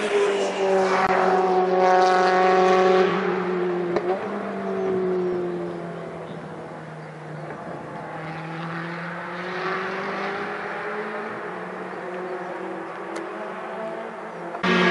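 British Touring Car Championship race car engines on track. One car passes loudly in the first three seconds, and its note falls away as it leaves. Another car is heard more faintly as it approaches and passes around the middle.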